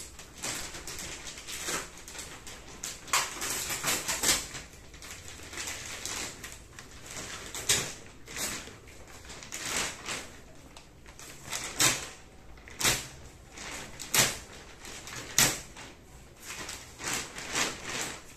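Thin plastic mattress wrapping crinkling and rustling in irregular bursts as it is slit with a knife and pulled back by hand.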